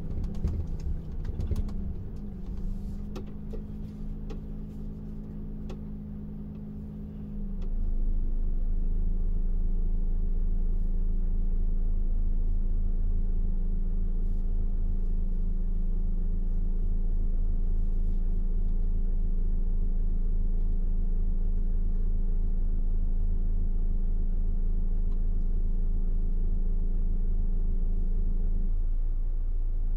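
Volvo truck's diesel engine running on the road. About seven seconds in, its note shifts and the low rumble grows louder, then holds steady.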